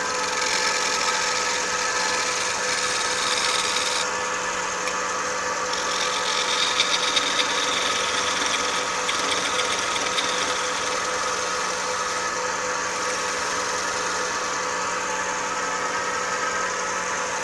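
Wood lathe running with a steady motor hum while a turning tool cuts the spinning wood, a hissing cut that shifts in strength as the tool moves; the tool's edge feels a little rounded off.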